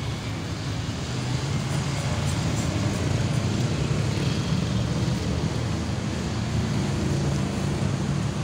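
Steady city street traffic noise: a low, even rumble of cars and motorcycles running through a road junction.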